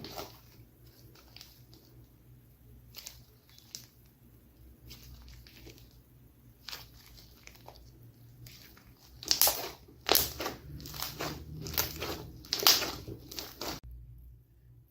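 Slime being pressed and squished by hand, giving crackling, popping clicks. They are sparse at first, then come thick and loud in the second half before stopping abruptly near the end.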